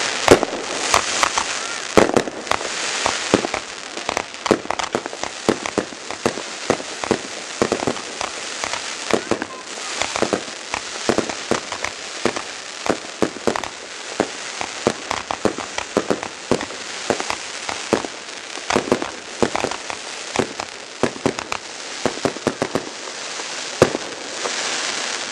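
Fireworks display going off: a dense, irregular run of bangs and crackles, with hissing rushes about a second in and again near the end.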